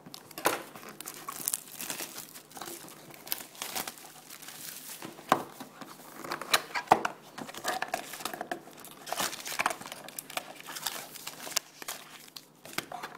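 Plastic shrink-wrap being torn off a sealed trading-card hobby box and crumpled by hand: a long run of irregular crackling and crinkling that eases off near the end.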